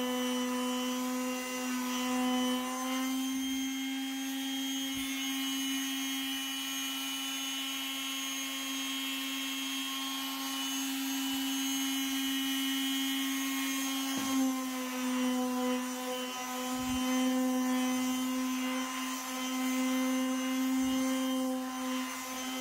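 Makita electric sheet sander running with a steady hum while sanding a pine tabletop's rounded corner and edge. The tone shifts slightly about three seconds in and again about halfway through.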